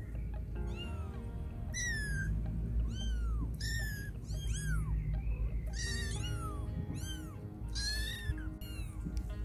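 Young kittens meowing repeatedly: about ten short, high-pitched calls, each rising and then falling in pitch, over background music.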